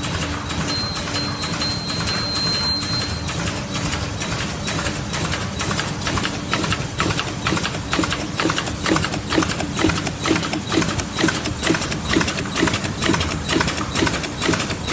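Automatic bottle-cap machine running: a steady mechanical hum with an even clacking a few times a second, which grows sharper about six seconds in. A thin high whine sounds for a couple of seconds near the start.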